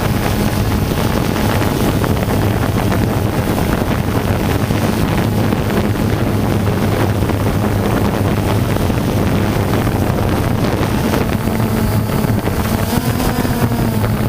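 Steady drone of the aerial camera aircraft's motor, with wind noise on the microphone; the pitch lifts slightly about 13 seconds in.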